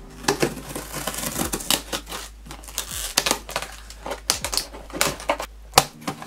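Scissors slitting the packing tape along the top seam of a cardboard box: irregular scraping, tearing and clicking as the blade cuts through tape and drags over cardboard, with one sharp knock a little before the end.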